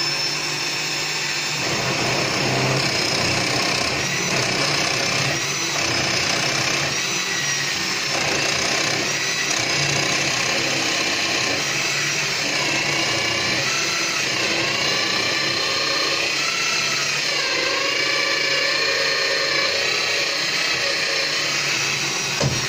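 Bosch benchtop drill press running, a long drill bit boring deep into a block of wood. A steady motor whine whose pitch dips and recovers as the bit bites, stopping just before the end.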